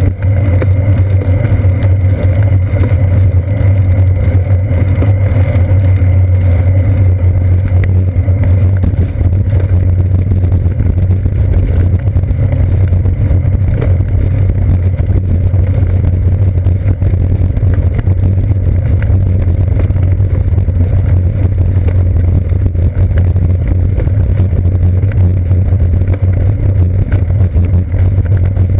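Loud, steady low rumble of wind and road vibration picked up by a seat-post-mounted GoPro Hero 2 as the bicycle rolls along wet pavement.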